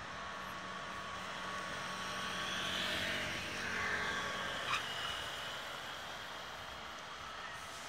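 Steady road traffic noise that swells as a vehicle passes, about three seconds in. A single sharp click follows just before five seconds.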